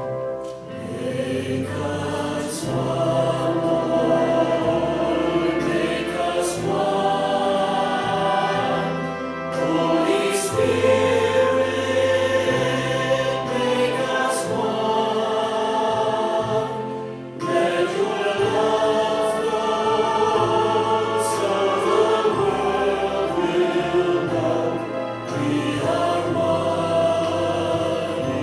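A church congregation singing a hymn together with instrumental accompaniment, in long held chords over a steady bass.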